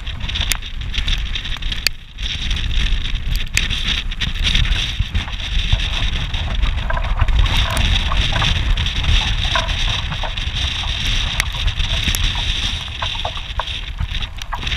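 Strong wind buffeting the microphone and water rushing along the hull of a Wayfarer sailing dinghy under way in a storm, with scattered sharp ticks.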